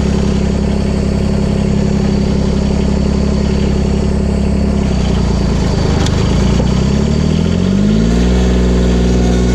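1990 John Deere 332's Yanmar 3TN66UJ three-cylinder diesel engine running steadily, then revving up about seven seconds in and holding at the higher speed.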